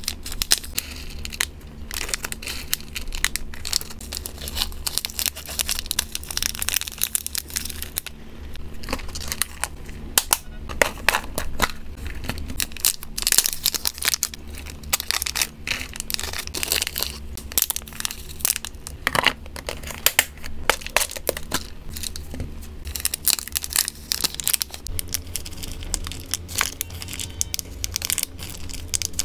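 Small clear plastic snack bags crinkling in the hands in dense, irregular crackles as they are handled and opened. Small dry hamster treats are tipped from a bag into a plastic storage box.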